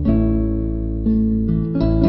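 Instrumental background music, with sustained chords changing about once a second.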